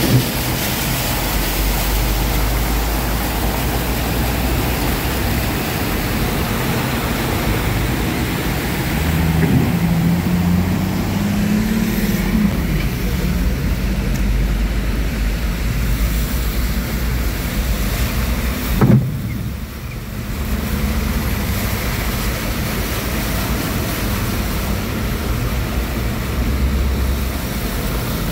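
Heavy rain and traffic on a flooded street: a steady wash of rain and water with car engines running underneath, one engine briefly rising in pitch. A single sharp knock about two-thirds of the way through.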